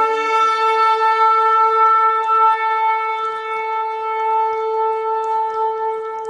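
Shofar (ram's horn) sounding one long, steady held blast on a single pitch, easing off slightly near the end.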